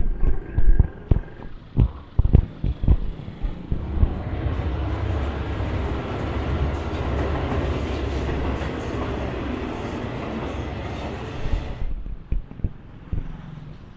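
Scattered knocks and thumps, then a steady vehicle rumble that sets in about four seconds in and cuts off suddenly near the end.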